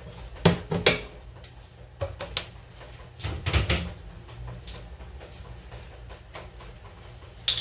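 Kitchen clatter: a bowl and utensils knocked down on a counter and cupboard doors or drawers handled, a handful of sharp knocks over a low steady hum.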